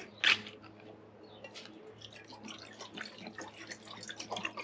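Water poured from a plastic bottle into the aluminium pot of a Trangia 27 cookset, irregular splashing and trickling, after a sharp plastic crackle from the bottle near the start. A neighbour's lawnmower runs faintly underneath.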